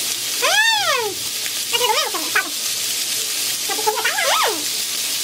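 Pork belly sizzling steadily in a frying pan, with three short whines from a pet dog, each rising and then falling in pitch, about half a second, two seconds and four seconds in.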